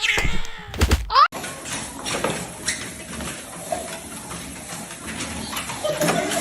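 A cat's short cries with a loud knock about a second in, then an abrupt change to steady background noise with scattered light knocks.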